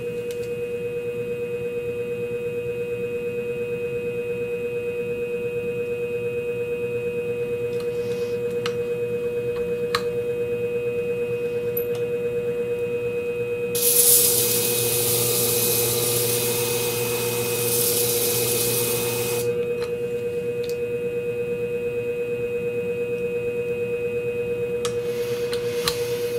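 Scimech Flathone shear-sharpening machine running with a steady motor hum. About 14 seconds in, a shear blade is held against the spinning hone plate and grinds with a bright hiss for roughly five seconds, honing the edge.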